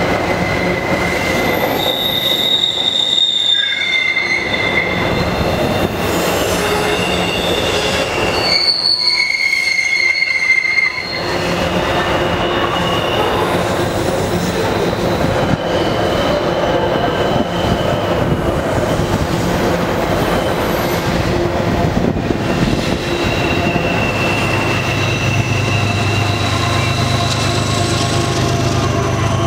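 Canadian Pacific double-stack intermodal freight train passing close by. The cars rumble steadily while high-pitched wheel squeals come and go as the train takes the curve. Near the end a mid-train diesel locomotive rolls past and adds a low engine drone.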